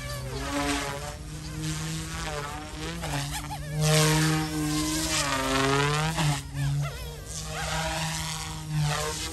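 YXZNRC F280 RC helicopter's brushless motors and rotor blades buzzing in flight. The pitch drifts up and down and the sound swells and fades as it manoeuvres, loudest near the middle.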